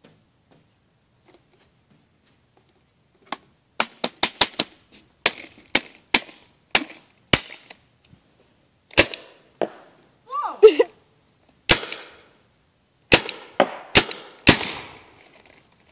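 Paintball gun firing about seventeen sharp pops, starting a little over three seconds in: a quick run of five around four seconds, then single shots half a second to a couple of seconds apart. A short cry sounds about ten and a half seconds in.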